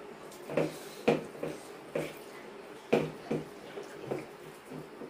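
Eating sounds: two people chewing mouthfuls of rice and curry and mixing it by hand on steel plates, as a string of short, irregular sounds, the loudest about a second in and near three seconds.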